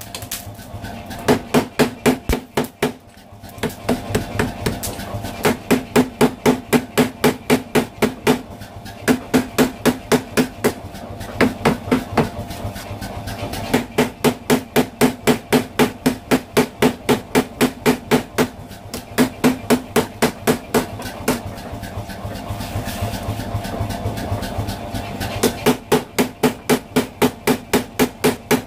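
Mechanical power hammer pounding a red-hot knife blade, in fast runs of about five blows a second broken by short pauses. The machine's motor runs steadily underneath.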